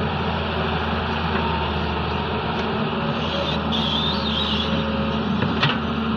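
Doosan DX140W wheeled excavator's diesel engine running steadily under hydraulic load as it dumps sand and swings back to dig. A brief high whine comes about four seconds in, and a sharp knock about five and a half seconds in.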